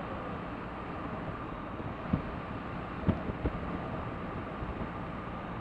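A 2017 BMW R1200RT motorcycle under way: steady wind rush with engine and road noise at the rider's microphone, and a few short thumps about two and three seconds in.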